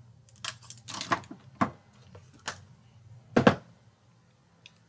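Makeup items being handled and set down on a desk: a string of light knocks and clicks, the loudest about three and a half seconds in.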